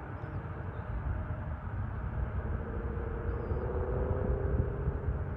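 Low, steady rumble of a distant jet airliner's engines as it taxis and turns on the runway, with a faint engine whine joining in over the second half.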